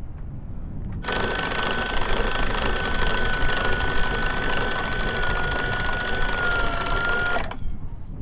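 Electric winch motor running under load, winding in a line. A steady whine that starts suddenly about a second in, sags slightly in pitch near the end, and cuts off after about six seconds.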